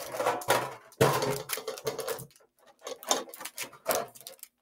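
Metal collector's tin being handled: irregular knocks and clatter as the tin and its lid are moved and an item is pulled out from inside, with a brief pause about halfway through.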